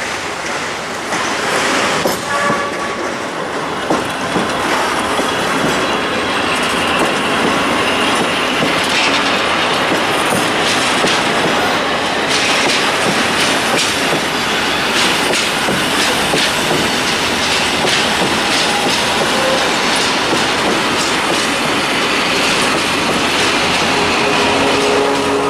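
Empty tipper wagons of a freight train rolling past close by, growing louder in the first couple of seconds. Their wheels clatter over the rail joints, with a faint wheel squeal around the middle.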